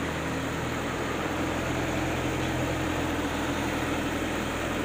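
BA05 clay brick extrusion machine running steadily, a constant low hum with an even mechanical noise over it. The clay feed is used up, so it is running without clay going through.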